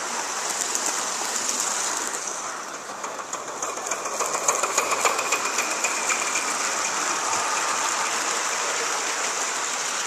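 Gauge 1 live-steam model trains running past on the track: the wheels click rapidly over the rail joints under a steady high hiss.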